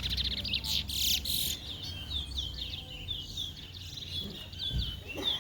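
Caged twa-twa finches (large-billed seed finch) singing: short, quick chirping notes repeated throughout, with a dense burst of rapid high notes in the first second and a half. This is the song that is counted in a twa-twa singing race.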